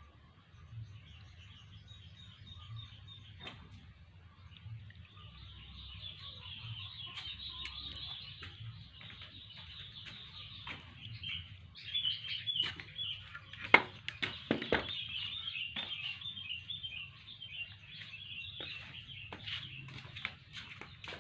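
Small birds twittering and chirping continuously in a dense, high chatter. Past the middle, a cluster of sharp knocks and clicks cuts through, one of them standing out as the loudest sound.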